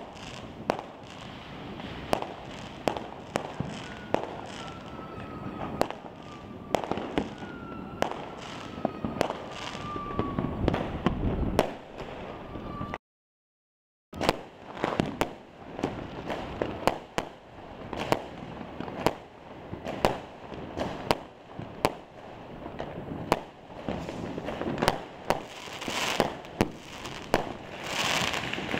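Fireworks and firecrackers going off all over the city at once: a dense, irregular run of bangs and pops, some close and some far, growing louder near the end. A thin whistle that slowly falls in pitch sounds above them for several seconds in the first half. The sound cuts out for about a second midway.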